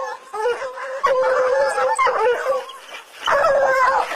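A pack of hunting hounds baying together, many voices overlapping into one chorus. The chorus dips briefly about three seconds in, then swells again.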